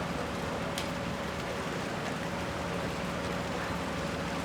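Steady background hiss with a faint, steady low hum underneath.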